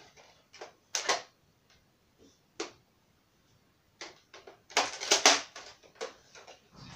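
Sharp plastic clicks and clacks of a large toy gun being handled and worked. A few single clacks come first, then a quick run of them about four to six seconds in, the loudest near five seconds.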